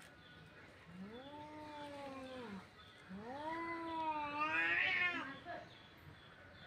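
Cats caterwauling in a fight standoff: two long, drawn-out yowls, the second longer and louder, wavering into a harsh wail near its end.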